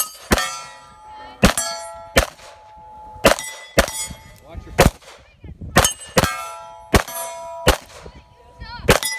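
A string of pistol shots fired at steel targets, about a dozen sharp cracks spread over several seconds, with the steel plates ringing out with a clang when they are hit.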